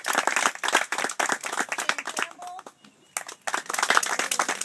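A group of people applauding with hand claps. The clapping dies away briefly a little past halfway, then picks up again.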